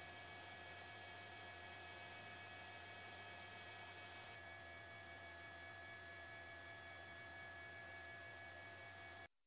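Faint steady electrical hum with several steady higher tones over it. The tones shift slightly about four seconds in, and it all cuts off suddenly near the end.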